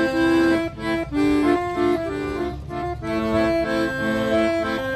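Instrumental music: a melody of held notes over sustained chords.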